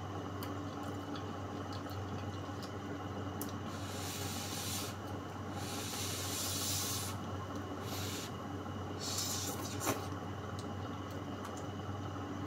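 A person slurping pancit noodles: several airy slurps between about four and nine and a half seconds in, with faint small clicks, over a steady low hum.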